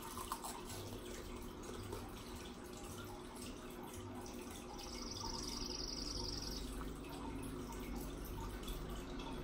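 Faint wet sucking and smacking of a toddler eating an ice pop. A faint, high, rapid trill runs for about two seconds midway.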